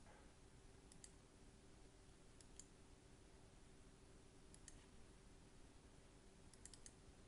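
Faint computer mouse clicks over near-silent room tone with a faint steady hum: a click about a second in, more at two and a half and four and a half seconds, and a quick run of clicks near the end.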